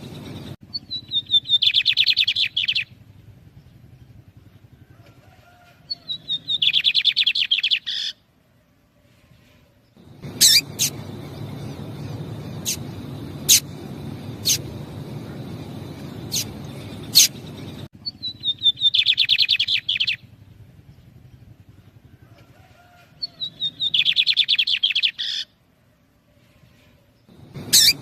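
A pair of lined seedeaters (bigodinhos) calling back and forth: four rapid, trilled song phrases of about two seconds each, each opening with a few falling notes. In the middle stretch, between the second and third phrases, about six sharp single chip notes sound.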